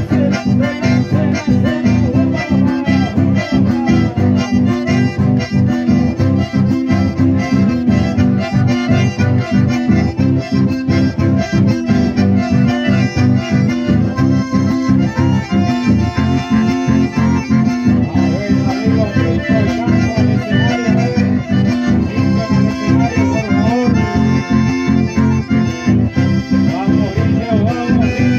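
Live chamamé played on two accordions over acoustic guitars keeping a steady, even strummed rhythm.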